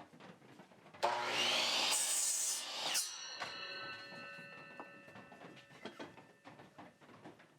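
Electric saw switched on about a second in, its motor spinning up with a rising whine and cutting a small piece of wood. It is switched off about three seconds in, and the blade hums as it coasts down.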